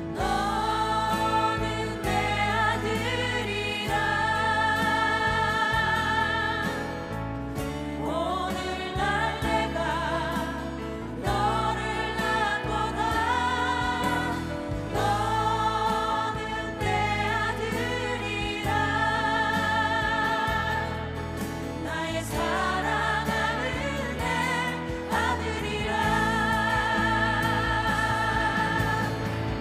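Mixed vocal group singing a Korean worship song in harmony, with keyboard accompaniment; the singers hold long notes with vibrato, phrase after phrase.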